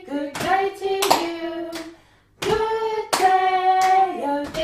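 A woman and a girl singing a simple children's welcome song together in held notes, two phrases with a short break about two seconds in. They clap palms against each other's hands on the beat in a three-beat clapping game.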